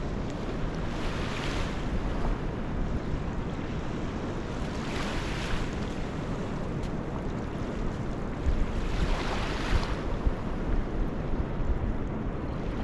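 Wind buffeting the microphone with a steady low rumble, and small waves washing onto the sand three times, about four seconds apart.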